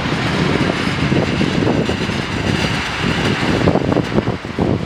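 Jet engines of an Embraer E190 rolling on the runway, a steady rush of engine noise with a faint high fan whine. From nearly four seconds in, wind buffets the microphone in uneven gusts.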